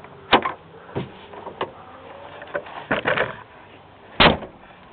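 A handful of sharp clicks and clacks from the pickup truck's door lock and handle being worked with a lock pick and tension wrench, one of the loudest a little over four seconds in.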